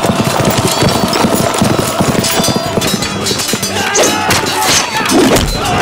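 Horses galloping, with men shouting over a film music score; the dense hoofbeats thin out about halfway through.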